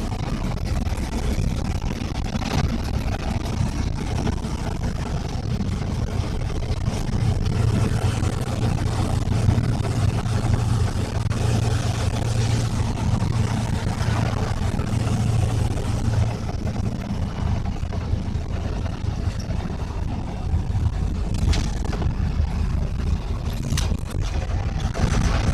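An engine running steadily, with its low hum growing louder for several seconds in the middle, and a few brief clicks near the end.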